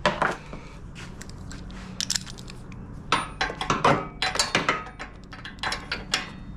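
Spark plug wrench clinking and clicking against metal as it is fitted and turned on the engine's spark plug: a quick run of sharp metallic clicks, thickest over the middle few seconds, after a single knock at the start.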